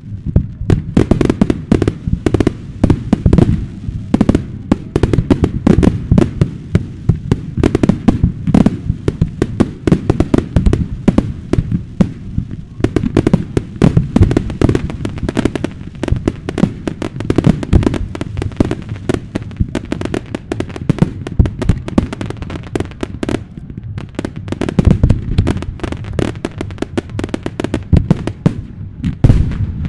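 Fireworks display: a dense, continuous barrage of shell bursts, many sharp bangs a second over deep booms.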